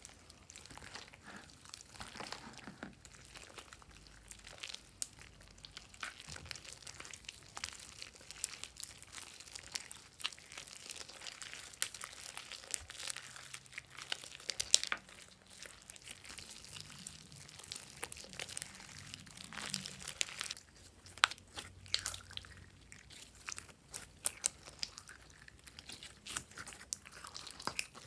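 Slime being mixed and handled: irregular crackling, crunching and crinkling with scattered sharp clicks, louder in spells around the middle and near the end.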